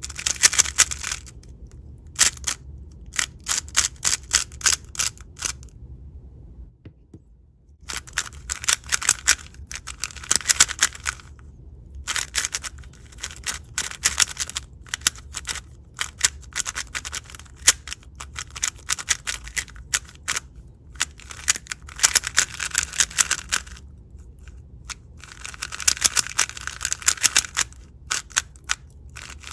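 Two MoYu WeiLong WR M plastic 3x3 speed cubes, one of them lubed with Angstrom lube, turned fast by hand one after the other so their turning sounds can be compared: bursts of rapid clicking layer turns with short pauses between them, and a near-quiet gap of about a second around seven seconds in.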